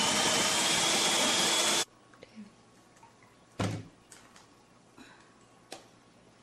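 Small electric food processor running while slicing zucchini, a steady motor noise with a high whine, which cuts off abruptly about two seconds in. A few light knocks and clatters follow.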